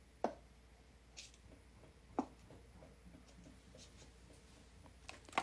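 Oil pigment stick marking on a gesso board panel: faint scraping strokes broken by a few short, sharp taps, about a second apart.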